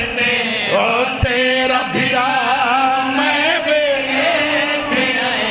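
Several men singing a devotional chant together into microphones, amplified over a PA, with long wavering held notes. A short low thump comes just over a second in.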